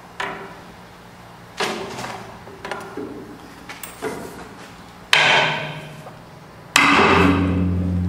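Hammer blows on the steel of a dump truck bed's welded tailgate hinge, about eight irregular strikes, the two near the end much louder with a ringing metallic decay. A low hum comes in with the last strike.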